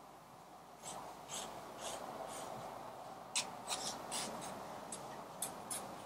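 Mechanical pencil drawing light lines on sketchbook paper: a series of faint, short scratchy strokes, coming more closely together from about three seconds in, as a margin is sketched in very lightly.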